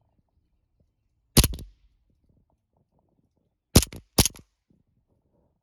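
Sig Sauer 1911 CO2 BB pistol firing three shots: one about a second and a half in, then two in quick succession near the end. Each shot is a sharp crack, doubled by the snap of the blowback slide.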